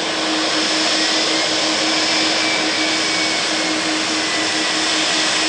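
Boeing 737 freighter's jet engines running as it rolls along the runway: a loud, steady roar with a high whine on top.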